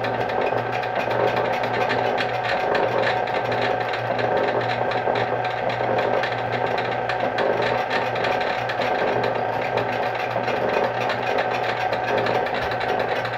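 Rhodes metal shaper running, its ram stroking steadily back and forth over a low steady hum.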